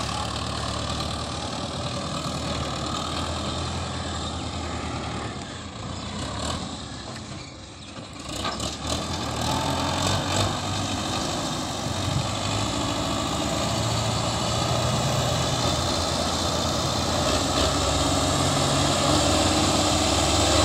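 Belarus MTZ front-loader tractor's diesel engine running steadily as it works. The sound dips briefly about seven seconds in, then comes back louder.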